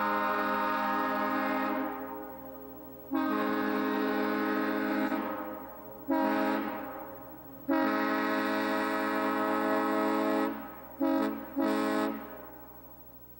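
Nathan AirChime M3 train horn blown in its three-chime setting, a steady chord of several notes. It sounds in six blasts of mixed length, the longest about three seconds, with two quick toots near the end. The horn has a valve fitted that switches it to a five-chime M5.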